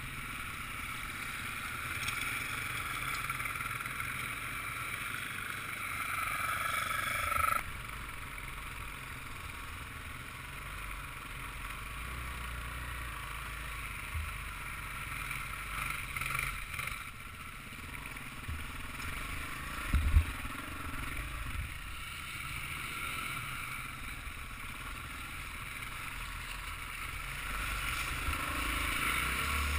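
Off-road motorbike engine running under way on a dirt track, heard from a helmet-mounted camera. It grows louder and then drops off suddenly about seven and a half seconds in, with a short knock around two-thirds of the way through and the engine rising again near the end.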